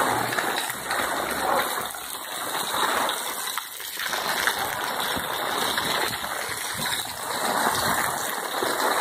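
Rain falling steadily on a cobbled street, with water splashing and running off.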